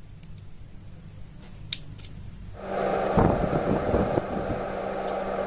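A few small sharp clicks as a pointed metal tool presses the lock tabs of a 130 DC motor's end cap. About halfway through, a steady low hum comes in with scratchy rubbing and handling as a marker is worked over the cut-open motor.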